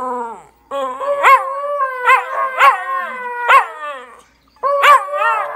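Two West Highland white terriers howling together: long wavering howls overlapping, with sharp yelping rises breaking in. The howling stops briefly twice, about half a second in and again around four seconds in.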